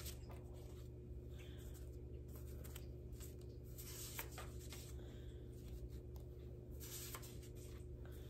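Soft, irregular rustling and sliding of paper as a stack of small colouring sheets is handled and leafed through, with a couple of light taps, over a steady low hum.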